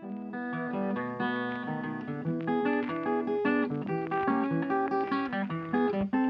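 Background music: a melody played on plucked acoustic guitar.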